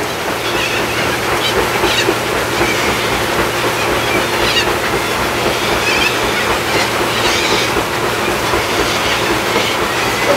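A flock of corellas giving short harsh screeches every second or two over a loud, steady mechanical rumble with a low hum.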